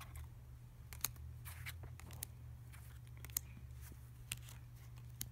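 Trading cards being flipped and slid off a stack by hand, a string of faint, irregular clicks and soft scrapes, over a low steady hum.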